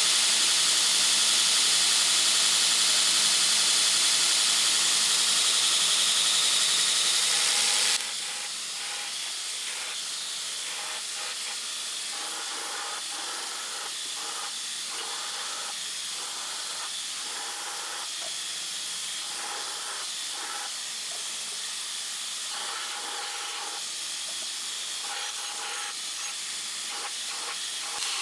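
Belt grinder grinding steel: a loud, steady high-pitched hiss of the abrasive belt for about the first eight seconds, which cuts off abruptly and leaves the grinder running more quietly.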